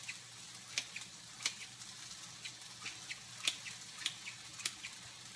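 Chicken, peppers and onions sizzling faintly in a stovetop grill pan, with a handful of sharp clicks as salad chopper blades tap the pan.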